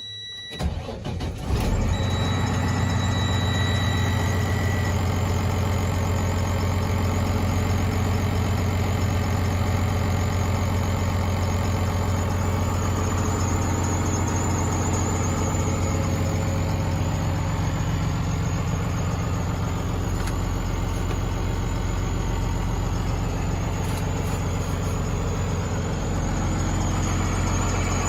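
A truck's diesel engine cranks and starts about a second in, then idles steadily. A faint high tone fades out within the first few seconds.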